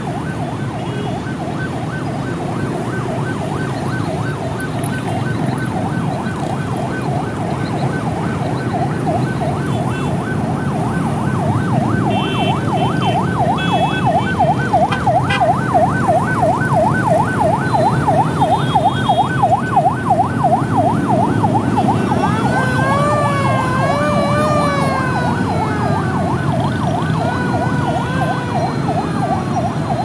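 Ambulance siren on a fast yelp, about four sweeps a second, growing louder as the Toyota HiAce ambulance approaches through traffic. About two-thirds of the way through it switches to slower rising-and-falling sweeps that then fall away. Traffic noise runs underneath, with a few short horn beeps.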